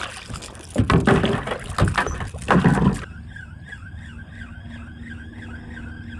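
A hooked jack thrashing and splashing at the surface beside a kayak, in several loud bursts over about three seconds. After that the splashing stops and a steady, warbling tone remains.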